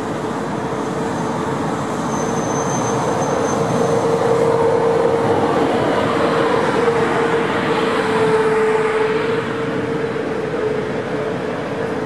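DB class 111 electric locomotive hauling double-deck coaches past at close range. A steady mid-pitched electric hum runs throughout, with the running noise of the coaches' wheels on the rails getting louder in the middle as the train passes. A brief high-pitched tone sounds about two seconds in.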